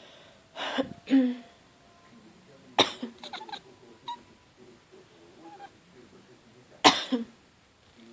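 A person coughing in separate harsh fits: a pair of coughs about a second in, a sharp cough with a few short follow-ups around three seconds in, and the loudest cough near the end.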